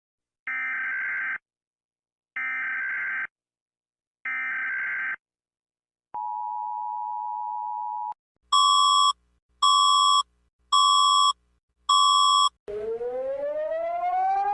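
A run of emergency alert tones. First come three short buzzy electronic data bursts, then a steady two-tone tone for about two seconds, then four loud short beeps. Near the end a siren starts wailing, rising in pitch.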